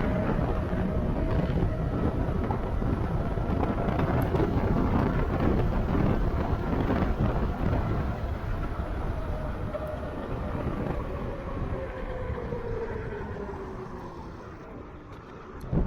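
A vehicle running with a heavy rumble and some wind on the microphone; over the last several seconds its tone slowly drops in pitch and the sound fades, as of a vehicle slowing down or moving away.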